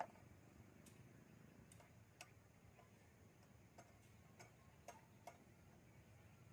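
Near silence with a low hiss: a sharp click right at the start, then about seven faint ticks at uneven intervals.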